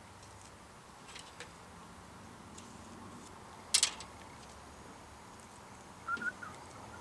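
Small taps and clicks of a thin wooden stick handled against a glass tabletop: a couple of faint ticks about a second in and one sharp click a little under four seconds in. Near the end there is a brief, high double chirp.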